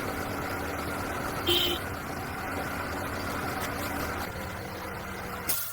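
Honda 110cc motorbike's single-cylinder four-stroke engine idling steadily; the owner calls the engine very noisy and weak, the sign of worn piston rings. A brief higher-pitched sound about a second and a half in, and a sharp click near the end.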